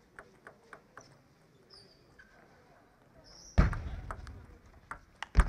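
Table tennis ball clicking in a quick run of light ticks in the first second, then two loud sharp knocks of play, about three and a half seconds in and near the end.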